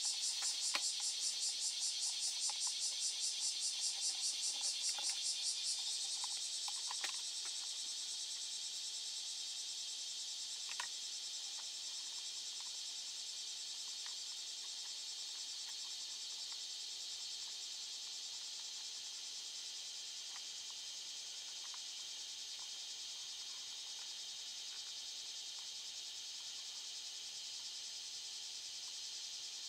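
A high, continuous insect trill that pulses rapidly for the first few seconds, then runs on evenly and slowly fades. A few light clicks come from small plastic chassis parts being handled.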